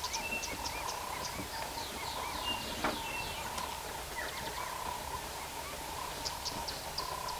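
Small birds chirping and calling in quick, short notes over a steady tone, with one sharp click about three seconds in. No deep booming call from the ground hornbill is heard.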